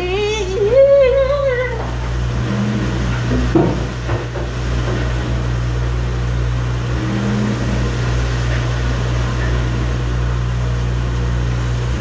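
Auto-Chlor commercial door-type dishwasher running its wash cycle: a steady hum with an even rush of spraying water, which stops at the very end as the cycle finishes. A voice sings or talks over it for the first couple of seconds.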